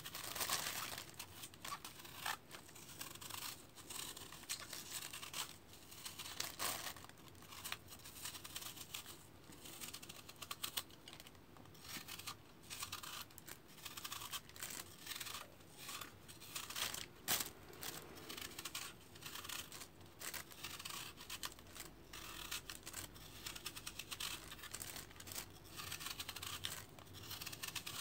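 Knife peeling an apple by hand: a quiet, irregular run of short cutting and scraping strokes as the skin is pared away.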